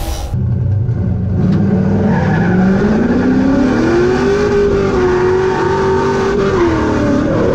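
Drift car's engine heard from inside the cabin, revving up over about three seconds and then holding high revs, with a short dip near the end.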